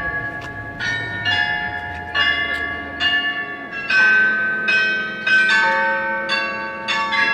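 The Glockenspiel bells of Munich's New Town Hall tower playing a slow tune, a new bell note struck roughly every second and ringing on under the next.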